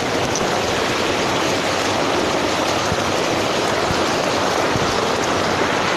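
Steady rush of rainwater flooding down a street in heavy rain, running with force.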